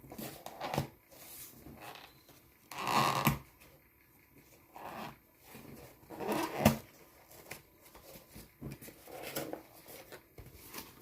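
Recycled-paper phone-case packaging being handled and opened: irregular bursts of rustling, crinkling and tearing, with a sharp snap about six and a half seconds in.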